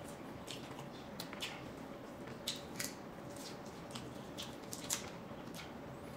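Cooked shrimp being peeled by hand: the shell cracking and snapping off in small, irregular clicks and crackles.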